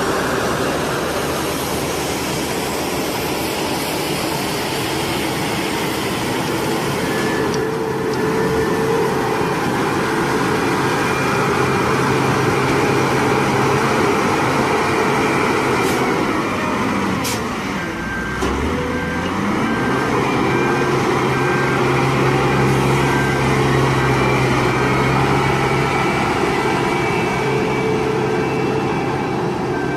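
Heavy road-construction machinery's diesel engine running steadily. A little past halfway its pitch drops and then climbs back up. Through the last third a reversing alarm beeps repeatedly.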